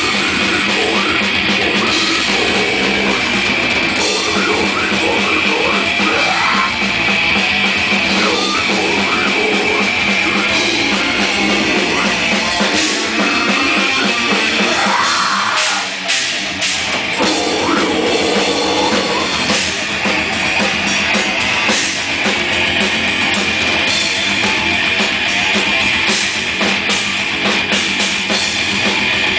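Live death metal band playing at full volume: distorted electric guitars over a fast, busy drum kit. The band stops for a moment about halfway through, then comes back in.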